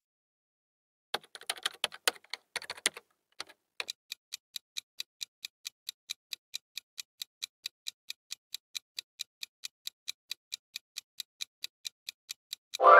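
Countdown-timer sound effect of a clock ticking: starting about a second in with a few seconds of quick, irregular clicking, then settling into steady, evenly spaced ticks, about four a second.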